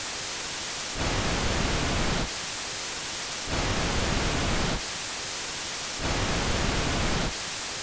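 Computer-generated white noise and pink noise played back to back, switching back and forth about every second and a quarter. A flat, even hiss alternates with a slightly louder, deeper hiss that has more low rumble in it.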